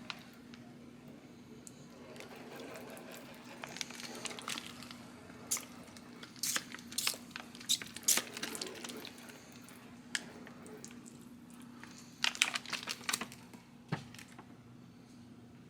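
Crinkling and crackling of something handled, like plastic or paper wrapping, in two clusters of sharp crackles, over a steady low hum.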